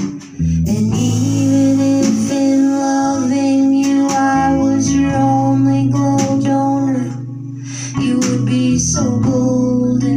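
Live band music: a woman singing over an archtop guitar, with a drum kit and cymbals behind, softening briefly about two-thirds of the way through.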